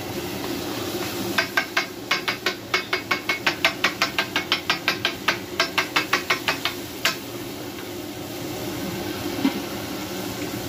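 Metal spatula rapidly tapping on a steel tawa griddle as it chops frying chicken masala, about five or six strikes a second over steady sizzling. The tapping stops about seven seconds in, leaving only the sizzle and hiss of the frying.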